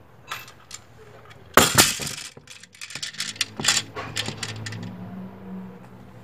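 Spring-powered toy Mk3 grenade landing in a cardboard box: a sharp knock about a second and a half in, then a quick scatter of small hard clicks and rattles that die away over about two seconds.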